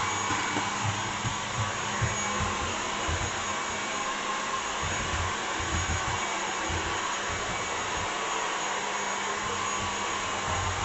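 BALMUDA The Cleaner stick vacuum running steadily, with a faint whine over its motor and airflow noise, and irregular low bumps scattered throughout.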